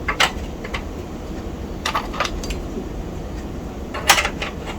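Light metallic clicks and clinks of steel expansion-slot covers being handled and fitted into the back of a computer case, a few scattered strikes with a tighter cluster near the end.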